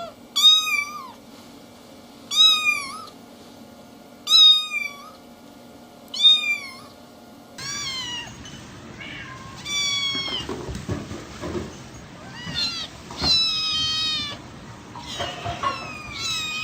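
Kittens meowing: four high, falling meows about two seconds apart, then a quicker run of meows, some overlapping.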